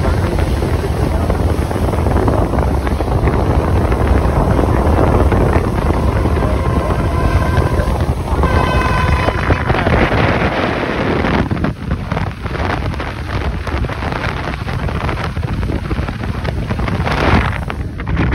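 Wind buffeting the microphone over the steady low rumble of a fast passenger ferry underway and the rush of water past its hull, heard from the open deck. About halfway through, two short pitched tones sound one after the other, and the wind grows more gusty after that.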